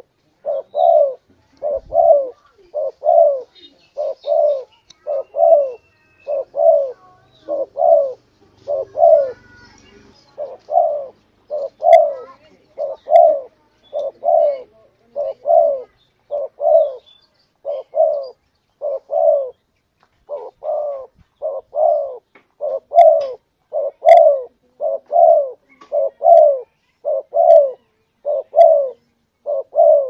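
Spotted dove (tekukur) cooing as a lure call: short, low coos that fall slightly in pitch, repeated two or three times a second without a break.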